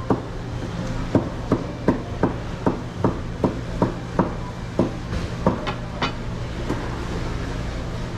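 About a dozen sharp wooden knocks at an even pace of two or three a second, like a blade striking a wooden cutting board, thinning out and stopping about six seconds in. A steady low hum runs underneath.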